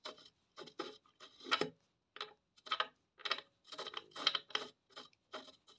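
Short, irregular metallic clicks and scrapes, about two a second, from the Suzuki RG250 Gamma's swingarm pivot bushing being worked back and forth by hand in its housing as it frees up.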